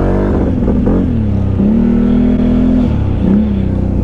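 Quad bike (ATV) engine running under throttle, the revs dipping and picking up again about a second in and again around three seconds, holding steady in between.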